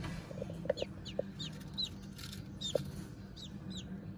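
Day-old baby chicks peeping: a run of short, high cheeps that fall in pitch, several a second, with a few soft knocks among them.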